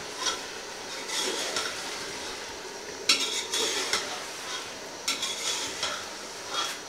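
Beef pieces sizzling as they fry in ghee in an aluminium pressure cooker, stirred by a metal ladle that scrapes against the pot in repeated strokes.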